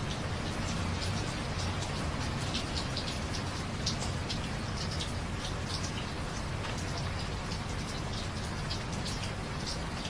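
Steady rain falling, with many close drops ticking on hard surfaces over a continuous hiss and low rumble.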